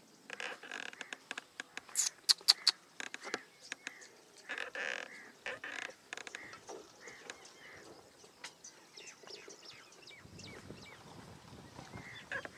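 Bird calls mixed with sharp clicks and rustling, loudest in a quick run of snaps about two seconds in.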